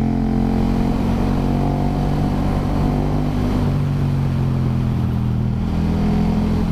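KTM 1290 Super Duke R's V-twin engine running under steady throttle through a bend, with rushing wind. The engine note shifts slightly in pitch about halfway through.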